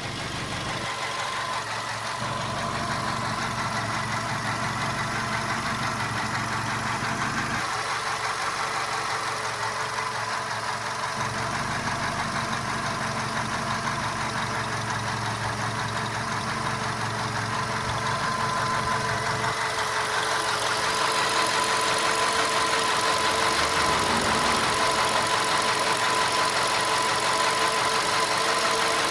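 Volkswagen Golf 5 engine idling steadily with a knocking noise in its running. The knock is the fault being diagnosed. The engine gets a little louder about two-thirds of the way through.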